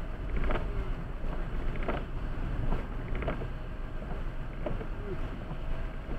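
Steady low rumble of a car driving on a wet road, heard from inside the cabin: engine and tyre noise, with a few faint clicks.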